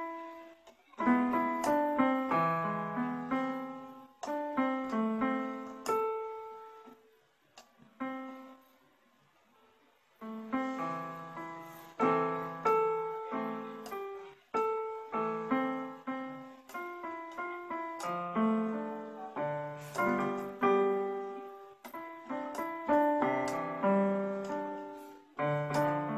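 Techno T9880i electronic keyboard played with a piano voice: chords and a melody of struck notes that fade after each stroke, with a pause of about two seconds around a third of the way in.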